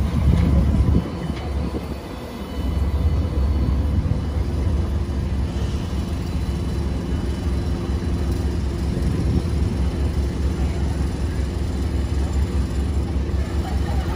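Alstom Citadis X05 light rail trams moving through a street stop: one passes close by, the sound dropping briefly about two seconds in, then another rolls in slowly with a steady low rumble and a faint electric hum.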